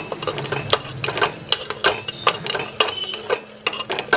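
Metal spoon clinking and scraping against the inside of a pressure cooker while mashing softened carrots and tomatoes, in a quick, even run of clinks about three a second.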